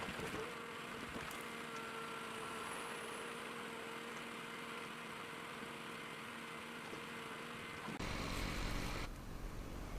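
Engine of heavy forestry machinery running steadily with a constant hum. About 8 seconds in the sound cuts abruptly to a louder, deeper engine rumble.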